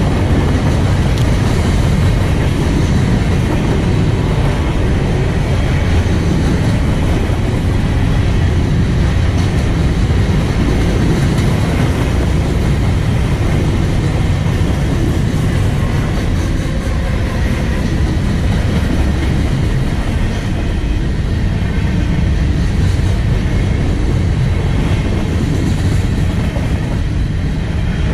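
Freight train of covered hopper cars rolling past close by: steel wheels running on the rails in a loud, steady, deep rumble.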